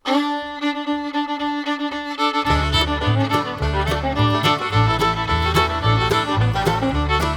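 Background music: an upbeat fiddle tune, with a steady bass beat coming in about two and a half seconds in.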